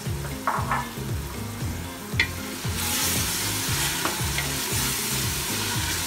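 Chopped tomatoes sizzling in hot oil with fried onions in a pressure cooker pot as a spoon stirs them. A few light knocks come in the first two seconds, and the sizzle gets louder about three seconds in.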